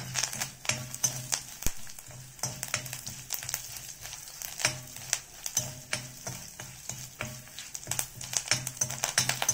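Mustard seeds, shallots, dried red chillies and curry leaves sizzling in hot coconut oil in a cast-iron kadai: tempering for the pachadi. A steel spoon stirs them, scraping and clicking against the pan many times.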